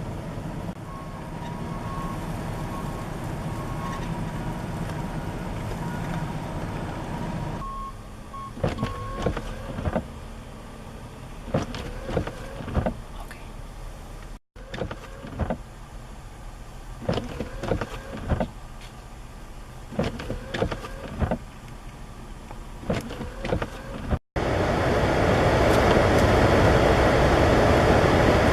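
Road-vehicle sound in a snowstorm, cut together: a vehicle running with a high intermittent beep at times, then a long run of sharp knocks, then a loud steady rushing noise near the end.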